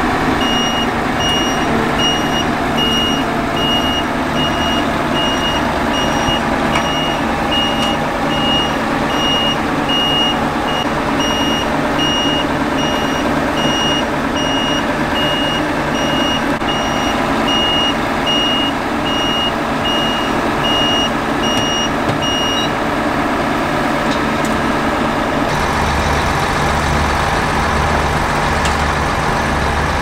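Claas Lexion 770TT combine harvester's reversing alarm beeping at a steady even rhythm over its running engine, stopping about three quarters of the way through while the engine keeps running.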